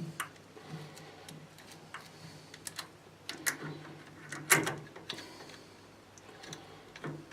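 Scattered clicks and clinks of metal hand tools being handled while swarf is cleared from a thread-cutting tap, the loudest knock about four and a half seconds in, over a faint steady low hum.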